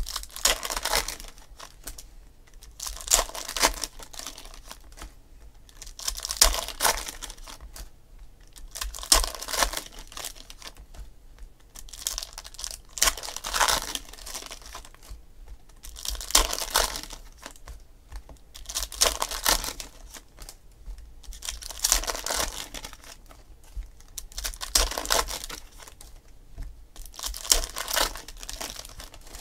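Foil trading-card packs (2016 Panini Donruss Optic football) being torn open and crinkled one after another, a crackly burst about every three seconds, about ten in all.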